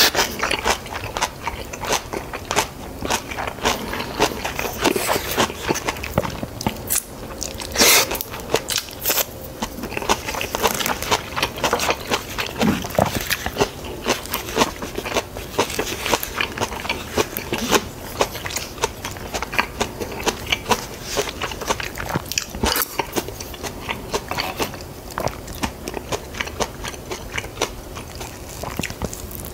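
A person chewing and crunching food close to the microphone, many small crunches and wet clicks in an irregular run, with a louder crunch about eight seconds in.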